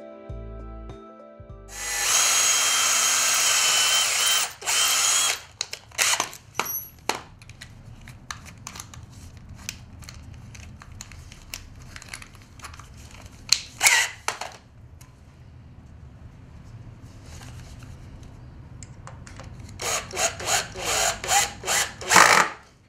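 A cordless drill/driver driving screws into pallet wood. It runs for about three seconds once, a couple of seconds in, then gives several short bursts, and near the end a quick run of short bursts as a screw is driven home.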